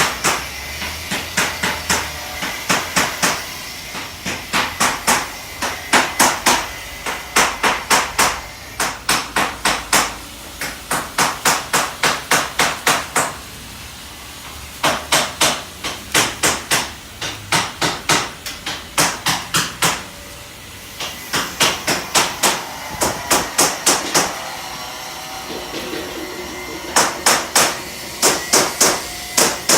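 Hammer blows on metal, struck in runs of quick strikes about three a second with short pauses between runs, with a ringing tone after the blows.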